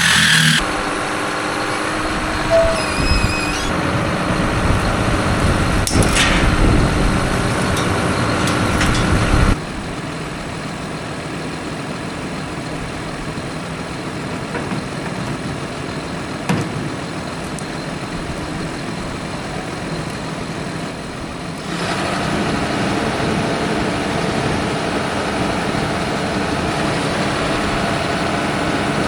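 A heavy machine's engine running steadily. The sound changes abruptly twice, about nine and a half seconds in and again about twenty-two seconds in.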